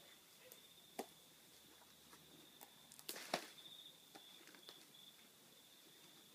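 Faint rustling and scratching as a puppy noses and paws through torn cardboard and stuffing on a concrete floor, with a sharp knock about a second in and a louder cluster of knocks just after three seconds. A steady high thin tone runs underneath.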